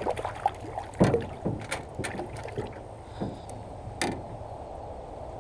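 Scattered light knocks, clicks and rustles of handling a freshly caught bream while working the hook out, over a steady outdoor background.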